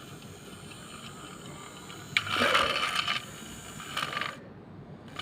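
Plastic battery-powered toy train being handled: a click about two seconds in, then about a second of rattling mechanical noise, and a shorter burst near the end.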